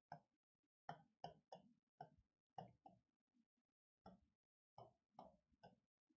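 Faint, irregular taps and clicks of a pen on an interactive display screen as a word is handwritten, about two or three strokes a second, with a short pause a little after the middle.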